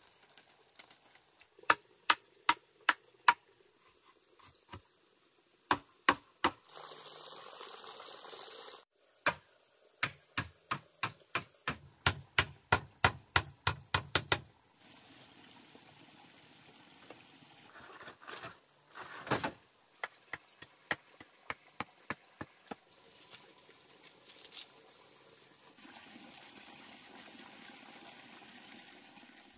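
Runs of sharp, evenly spaced knocks, about two to three a second, from hand tools striking bamboo, broken by short stretches of steady hiss that start and stop abruptly.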